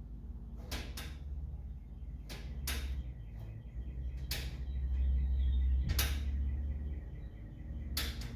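A string of short, sharp clicks and knocks, about seven spread unevenly over eight seconds, over a steady low hum.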